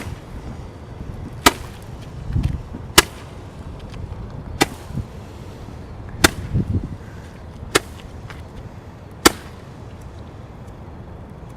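Handheld firework firing a string of shots: seven sharp cracks, about one every second and a half, over a low background rumble.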